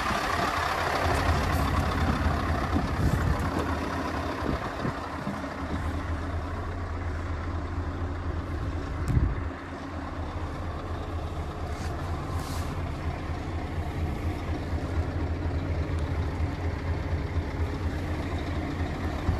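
Scania S520's V8 diesel idling steadily, with a single thump about nine seconds in, after which it sounds quieter.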